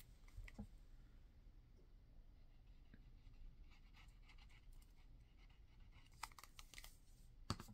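Near silence with faint scratching and scattered light clicks of paper and small craft pieces being handled, and a sharper click near the end.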